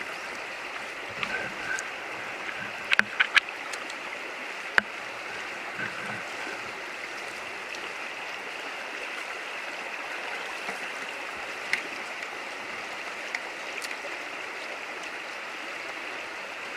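Shallow river current rushing and rippling over rocks at the bank, a steady even wash of water. A few sharp knocks sound about three to five seconds in.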